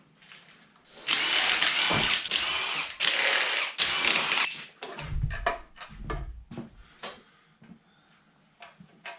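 Electric drill-driver spinning fasteners off a Mopar 360 small-block V8, in about three runs of a second each, its motor whine rising and falling. These are followed by a few low thuds and small clinks as parts are handled.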